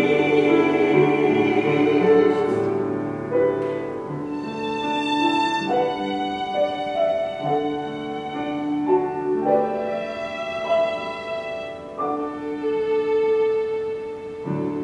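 A small group of singers finishing a sung phrase, then a violin playing a slow melody in long held notes.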